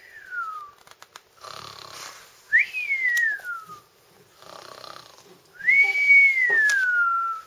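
A person imitating a cartoon snore: a rasping snore on the in-breath, then a whistle on the out-breath that jumps up and slides down in pitch. Two full snore-and-whistle cycles, after the tail of an earlier whistle at the start, and the last whistle is held longer before it falls.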